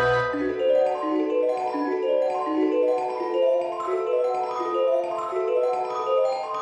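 Background music: a light melody of quick mallet-instrument notes, like a marimba or vibraphone.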